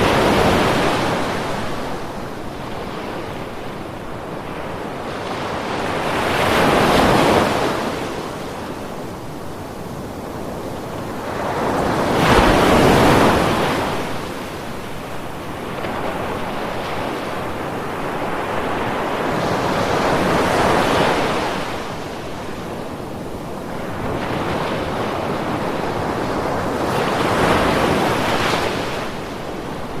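Ocean waves breaking and washing ashore. Five surges come one after another, every six to eight seconds, each swelling and fading over a few seconds, over a steady hiss of surf.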